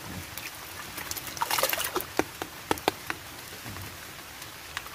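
Water splashing and dripping with scattered small taps as a freshly caught Nile tilapia is handled in the water, with a brief louder splash about a second and a half in.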